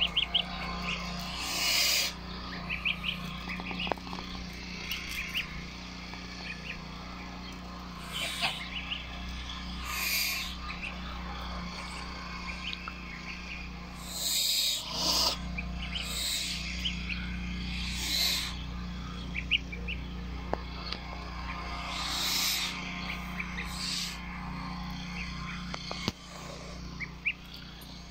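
Domestic goslings peeping repeatedly while they feed, with several short noisy bursts from the flock pecking at feed on the paving.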